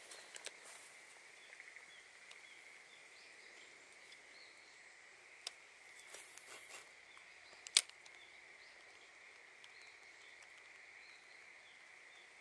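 Faint pondside ambience: a steady high-pitched insect drone with a few faint bird chirps. About six seconds in comes a short hiss, then a single sharp click just before eight seconds, from the fishing rod and baitcasting reel being cast and handled.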